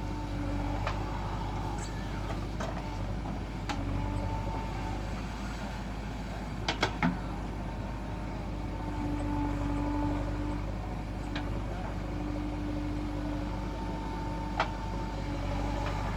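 JCB backhoe loader's diesel engine running under load, with a hydraulic whine that comes and goes as the arm and bucket work. Sharp metal clanks from the bucket and linkage, three in quick succession about seven seconds in and another near the end.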